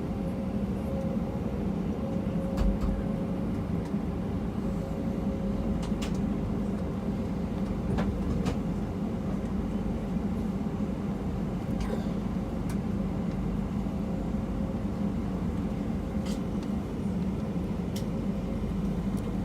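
Steady low hum inside an Airbus A320 passenger cabin, with a faint steady tone above it and a few light clicks or rattles scattered through.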